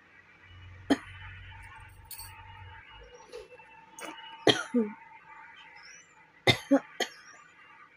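A woman's dry, phlegm-free cough: one short cough about a second in, another past the middle, then three quick coughs in a row near the end.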